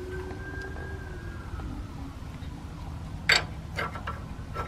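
Metal wrench clinking against the ball-joint pinch bolt as it is fitted onto the bolt head: one sharp clink about three seconds in, then a couple of lighter taps. Under it, a faint steady tone slowly falls in pitch.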